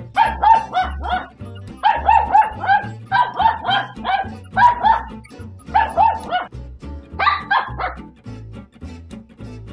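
Battery-operated plush toy dog giving rapid electronic yaps in repeated bursts of four or five, with short pauses between, over music with a steady low beat.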